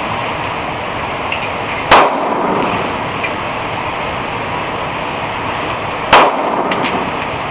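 Two shots from a 9mm pistol fired at an indoor range, about four seconds apart, each with a short echo, over a steady loud rushing background noise. Faint light clinks follow each shot.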